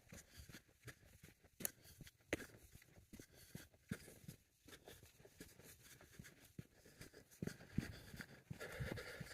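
Footsteps crunching on a dirt and gravel trail, coming as soft, irregular steps.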